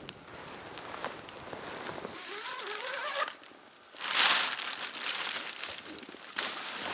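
Crinkling and rustling of handled material, with a brief quiet pause and then a louder rustle about four seconds in.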